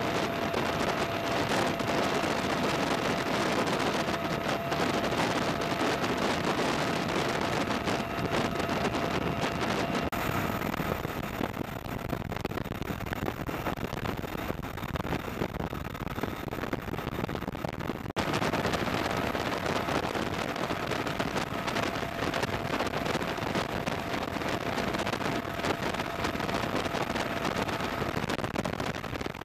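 Military helicopter rotor and turbine noise in flight: a steady rush with wind on the microphone and a faint steady whine. About ten seconds in it turns abruptly duller and a little quieter, and just before twenty seconds in it returns to the fuller rush.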